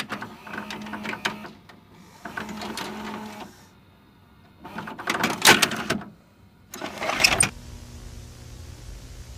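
Mechanical whirring and clattering sound effects in three bursts, then a sharper burst about seven seconds in. A steady low electrical hum with hiss follows, like a played-back VHS tape.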